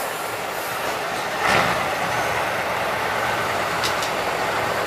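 A 6x6 Ural trial truck's engine running under load as the truck pushes through brush on a steep slope, with a short noisy burst about one and a half seconds in.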